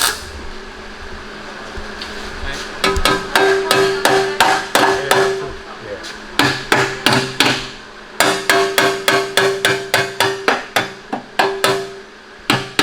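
Hammer blows on metal, driving a part into place on a car's drivetrain. The blows come in several quick runs of about three to four a second, each strike ringing.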